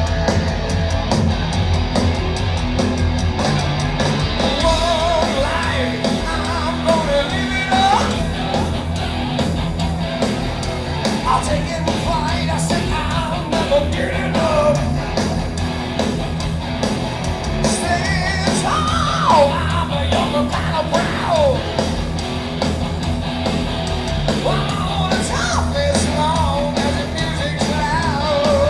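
Heavy metal band playing live, recorded from the audience: distorted electric guitar riff, bass and drums, with a high yelled lead vocal line coming in about five seconds in.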